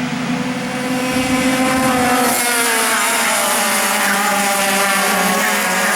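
Several racing kart engines running at speed together, their pitches rising and falling.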